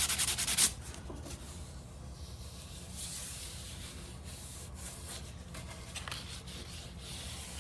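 Sandpaper rubbed by hand over a cabinet drawer to smooth it, in quick, short back-and-forth strokes of about seven a second. The strokes stop abruptly less than a second in, and fainter, uneven rubbing follows.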